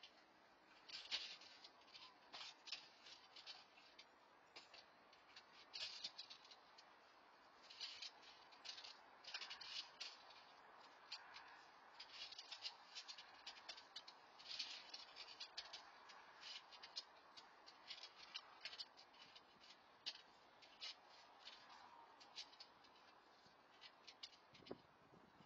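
Faint, irregular clicking and rustling, short scattered sounds with no steady rhythm, from a person rummaging through the interior of a parked car with its door open.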